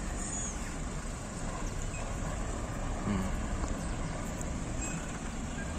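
Steady low outdoor rumble with a few faint, short high bird calls.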